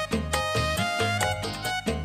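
Background music: a pitched melody with sliding notes over a steady beat and bass.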